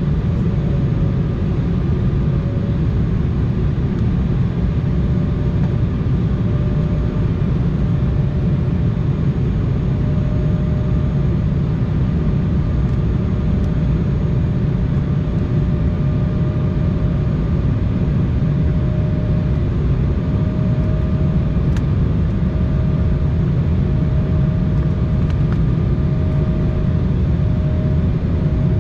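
Cabin noise inside an Embraer 175 jet airliner descending on approach: a steady low rumble of airflow and its GE CF34-8E turbofan engines, with a humming engine tone that creeps up a little in pitch in the first few seconds.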